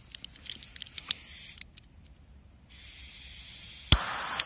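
Firecracker fuse lit and hissing steadily, starting suddenly about two and a half seconds in, with one sharp crack near the end. Light clicks and taps come before it.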